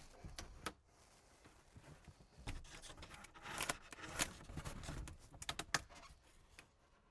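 Foil-taped foam-board cover box being handled and lowered into place: faint, scattered taps and light knocks with soft scraping rustles.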